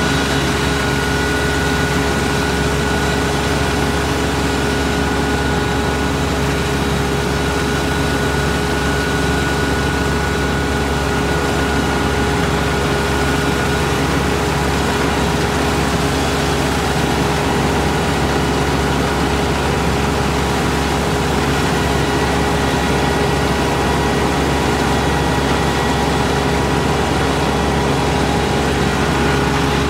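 Kubota ER448 combine harvester's diesel engine and machinery running steadily at a constant speed, with a few steady whining tones over the engine note.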